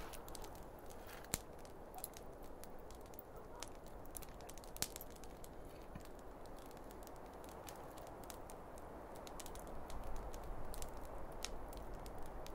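Wood campfire crackling: scattered sharp pops and snaps, two of them louder, over a low steady hiss.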